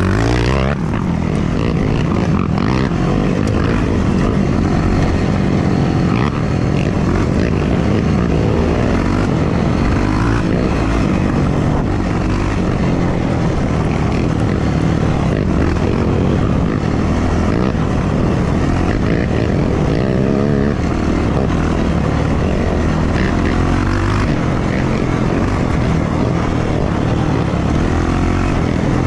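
Yamaha YFZ450R quad's single-cylinder four-stroke engine running hard, its pitch rising and falling as the throttle is worked, heard close up from a camera mounted on the machine.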